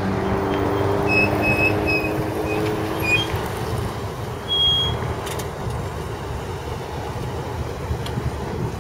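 1975 Cadillac Eldorado convertible's big V8 running as the car rolls slowly past at low speed. A few short high chirps sound about a second in.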